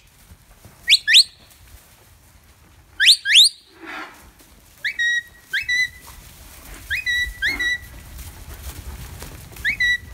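A sheepdog handler's whistle commands: two pairs of quick rising whistles, then four whistles that each flick up into a short held note, and a last short rise near the end. These are herding signals to a young working dog.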